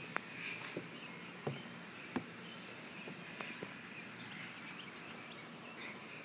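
Faint outdoor ambience with scattered faint chirps and a few light knocks and scuffs.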